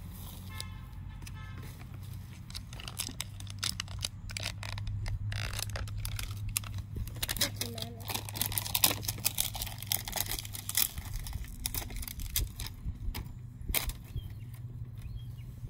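Plastic and paper wrapping crinkling and tearing as a surprise-toy capsule is unwrapped layer by layer, in irregular crackles over a low steady hum.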